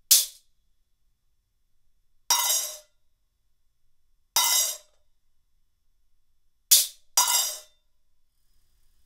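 Stick strikes on metal effect cymbals: one short, bright crash on a ribbon crasher, then four trashy crashes on a UFO effect cymbal that die away within about half a second. The crashes come about two seconds apart, and the last two are close together.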